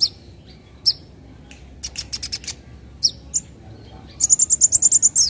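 Kolibri ninja sunbird singing: scattered sharp, high chirps and clicks, then near the end a fast, loud run of high notes, about ten a second.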